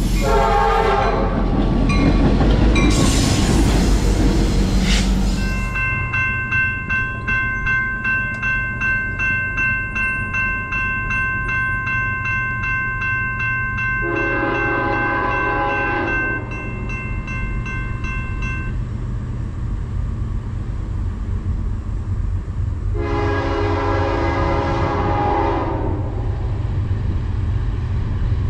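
Train horn sounding over the steady rumble of a passing train. A bell rings steadily for about thirteen seconds, pulsing about twice a second, and the horn sounds twice more: a short blast about halfway through and a longer one near the end.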